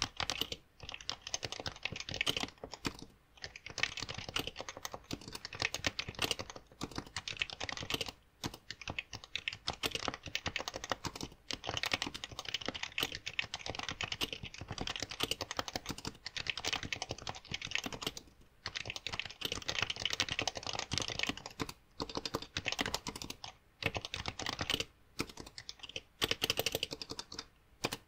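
Fast, continuous touch-typing on a Happy Hacking Keyboard (HHKB), a rapid stream of key strokes broken by a few brief pauses, picked up by a smartphone headset's microphone.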